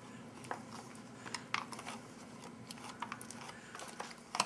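Spoon stirring inside a foil-lined freeze-dried meal pouch that holds a runny rehydrated egg mix: irregular light clicks and crinkles, with a sharper click near the end.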